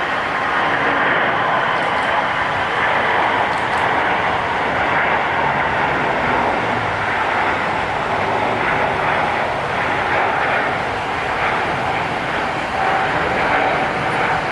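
Jet airliner's engines running loud and steady: a broad rushing noise with a faint whine in it.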